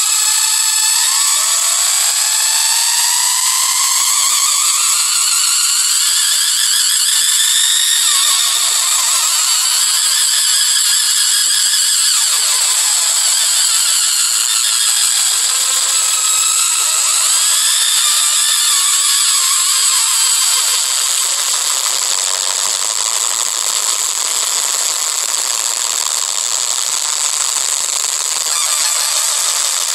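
Experimental noise music: a dense, high-pitched wash of many sliding, squealing tones with no bass. About twenty seconds in, the texture thins out and grows a little quieter.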